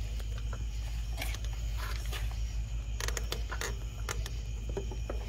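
A few light clicks and knocks, as of parts and tools being handled, over a steady low hum.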